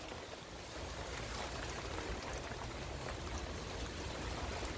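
Light rain falling, a soft even hiss with scattered patter of drops, over a low rumble.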